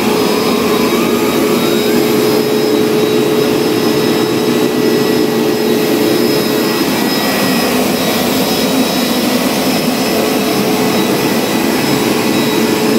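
Bissell ProHeat Pet Turbo upright carpet cleaner running as it is pushed over carpet: a steady motor whine over an even rushing of suction.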